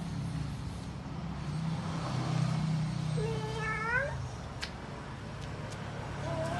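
Kitten meowing: one rising call under a second long about three seconds in, and another starting near the end, over a steady low hum.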